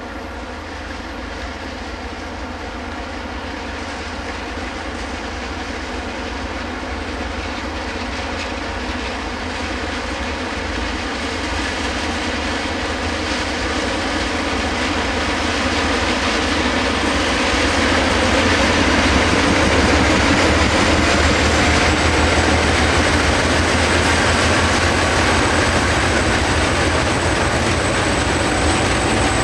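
Diesel locomotives hauling a long train of milk tank wagons approach and pass, their engines growing steadily louder. About two-thirds of the way through the locomotives go by and the rolling of the tank wagons on the rails takes over, with a thin high whine.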